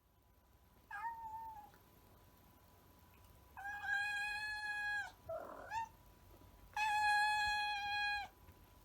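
Domestic cat meowing in long, drawn-out calls held at a steady pitch: a short one about a second in, then two longer ones of about a second and a half each, with a brief rougher sound between them.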